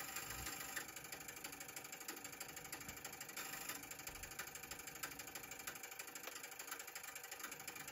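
Relays of the automatic antenna tuner in an Elecraft KPA1500 amplifier clicking rapidly and continuously during a tune cycle. The tuner is searching for a match for an antenna whose SWR has been thrown off by moisture, bringing it down from about 11:1 toward a match.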